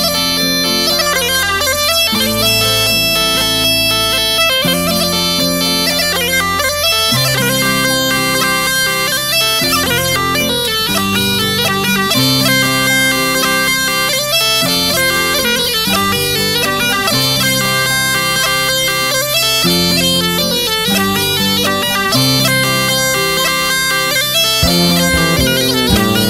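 Background music: a tulum, the Black Sea bagpipe, playing an unbroken melody.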